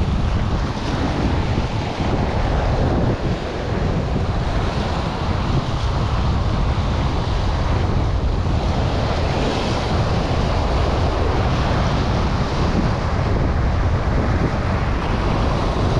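Surf washing over a rocky shore, with heavy wind buffeting on the microphone.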